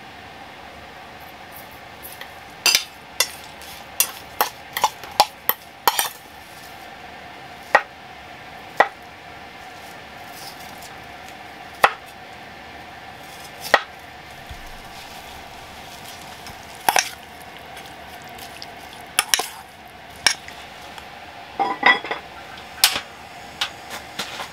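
Cooking-prep sounds of utensils on metal and wood: a spoon clinking against a stainless steel bowl and a knife knocking on a wooden cutting board. These come as separate sharp clicks and knocks every second or two over a steady hum. Near the end comes a quick run of clicks as the portable gas stove's knob is turned and the burner lit.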